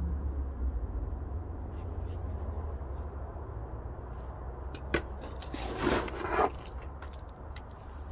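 Coarse gritty potting mix being handled and scooped into a large planter, with small clicks and a short rustling pour of grit about six seconds in, over a steady low hum.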